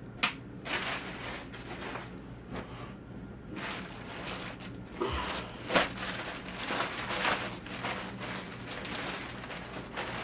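Clear plastic poly bag crinkling and rustling as a pair of twill pants is handled and slid out of it, with two sharper crackles, one just after the start and one about halfway through.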